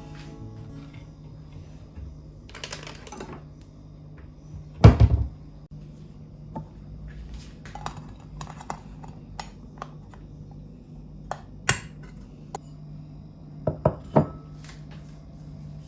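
Kitchen handling sounds of dishes and utensils: scattered clicks and clinks, with one loud thud about five seconds in and a few sharp knocks near the end.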